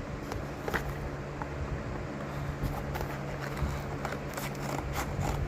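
Handling noise: scattered light clicks and knocks as an object is set upright and steadied, over a steady low hum.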